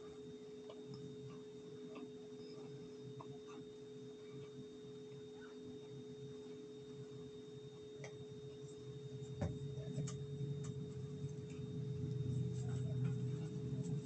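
A steady hum made of several fixed tones, with faint scattered clicks that grow louder and busier from about two thirds of the way in.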